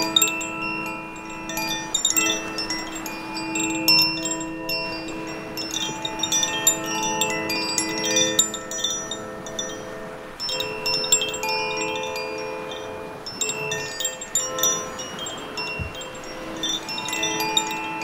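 Koshi 'Air' wind chime tinkling in clusters of quick strikes, each tuned note ringing on, with a quieter lull around the middle. Under the chimes there is a steady wash of sea waves on rocks.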